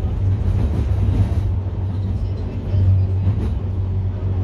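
Tram running along a city street, heard from inside the car: a steady low rumble and hum with traffic noise.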